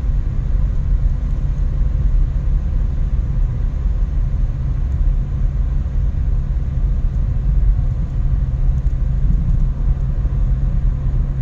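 Steady low rumble with a faint hum, unbroken and even in level.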